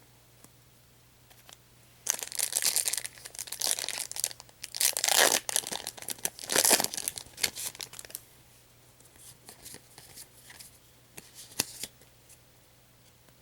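Foil trading-card booster pack wrapper being torn open and crinkled: a run of ripping and crackling starts about two seconds in and is loudest around the middle, followed by softer rustling and a few light clicks.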